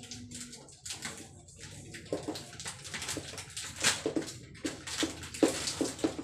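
Washing up at a kitchen sink: a run of short clinks and knocks of dishes and a plastic container, with water splashing.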